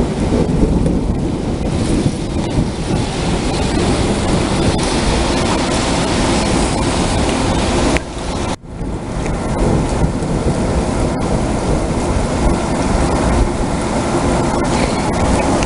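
Heavy thunderstorm rain, a dense, steady rush with a strong low rumble. It drops out briefly about eight and a half seconds in.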